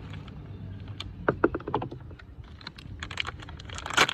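Irregular quick clicks and crinkles of packaging being handled as a new sensor is unwrapped one-handed, with a cluster about a second and a half in and more near the end.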